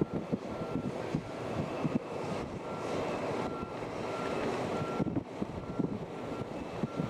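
A customs patrol boat running at speed: the engines and rushing water make a steady noise, with wind buffeting the microphone in irregular low gusts.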